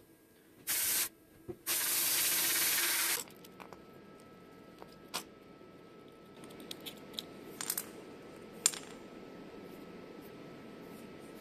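Sandblasting cabinet's blast gun spraying abrasive in two bursts, a short one under a second in and a longer one from about two to three seconds in. After that, a few small sharp clicks and taps as a 3D-printed masking cover is worked off a metal gear.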